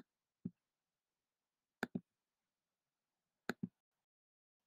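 Faint clicks of a computer's pointer button: a single click, another about half a second in, then two quick double-clicks about a second and a half apart.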